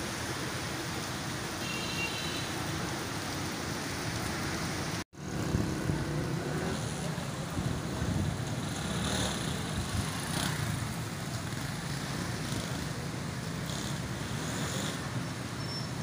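Steady rain for the first five seconds. It is cut off sharply, and then comes traffic on a flooded, rain-soaked road, with motorcycle engines passing through the water.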